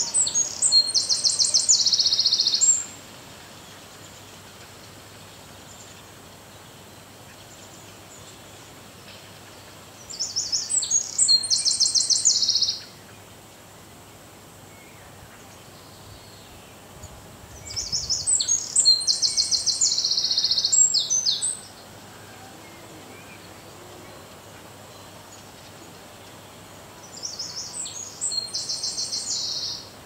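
A small songbird singing four loud, high, trilled song phrases of about two to four seconds each, about eight to ten seconds apart, over a faint steady background hiss.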